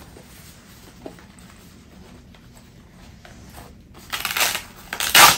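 A fabric luggage strap pouch being handled and opened, with a few small clicks, then two short, loud, scratchy rustles about four and five seconds in.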